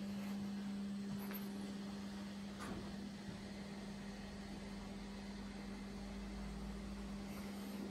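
A steady low hum with a faint higher overtone over quiet room noise, with a faint low rumble in the second half and a couple of light ticks.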